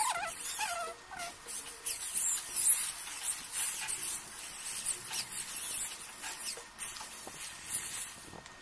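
Hand-held electric drill boring holes into a small block of wood, its sound swelling and easing as the bit cuts, with repeated high-pitched squeaks over it.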